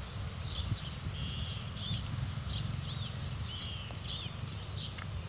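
Small birds chirping, short arched notes repeated over and over, above a steady low rumble.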